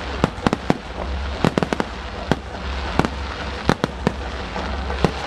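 Japanese starmine fireworks barrage: aerial shells bursting in quick succession, a string of sharp bangs at irregular intervals, several within a second at times, over a steady low rumble.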